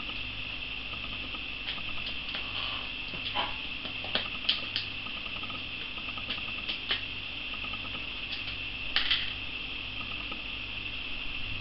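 Plastic deli cup handled and its snap-on lid pried off by hand: scattered light clicks and crackles, loudest a little after four seconds in and again near nine seconds, over a steady high hiss.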